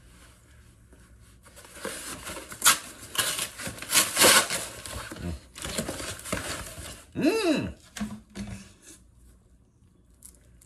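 Brown paper mailer being torn and crumpled open and Blu-ray cases slid out of it, in irregular rustling, crackling bursts. About seven seconds in there is a short pitched sound that dips and rises in pitch, then a brief low tone.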